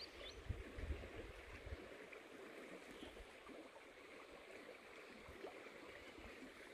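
Faint, steady rush of flowing creek water, with a few low bumps in the first two seconds.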